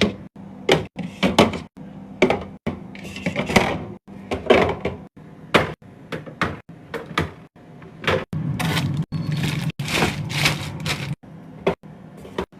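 A run of separate knocks and clunks as food containers and items are handled and set down in a refrigerator, with a steadier stretch of rubbing or rustling from about eight to eleven seconds in.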